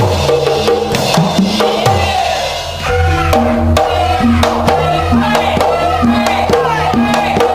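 Upbeat music with a steady drum beat and a bass line; a wavering melody comes in about three seconds in.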